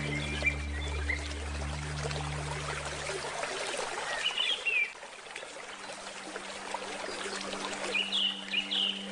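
River water flowing steadily, with a bird chirping a short phrase about four seconds in and a run of repeated chirps near the end. Low sustained musical tones fade out in the first few seconds, and a soft held tone returns later.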